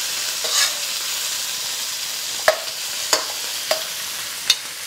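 Cubes of beef sizzling steadily in hot beef tallow in a carbon steel wok, being browned. A metal spatula scrapes the pan about half a second in and clicks sharply against the wok four times in the second half.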